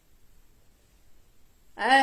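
Quiet room tone, then near the end a woman's short drawn-out vocal "ah", a sigh-like exclamation of admiration.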